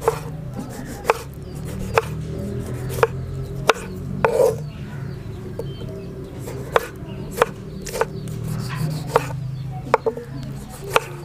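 Kitchen knife chopping a tomato on a wooden cutting board: sharp knocks of the blade hitting the board, roughly one a second.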